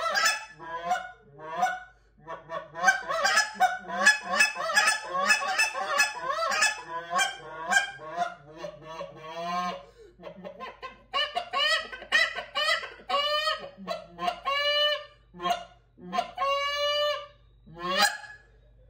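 GK Overture short reed goose call blown by hand, imitating goose honks: a fast run of clucks and honks, then slower, separate honks that crack upward in pitch, with a couple of longer drawn notes near the end.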